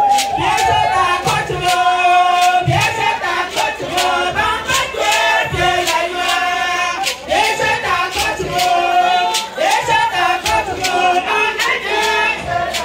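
A group of women singing together in chorus over a steady percussive beat, several voices holding and bending the same lines at once.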